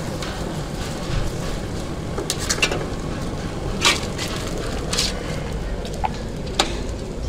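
Metal tongs, fork and knife clinking and scraping against a steel tray while döner meat is handled, giving a handful of sharp, irregular clicks over a steady low background noise.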